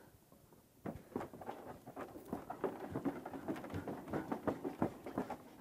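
Marker pen squeaking and scratching on a whiteboard as it is drawn on: a run of short, irregular strokes starting about a second in.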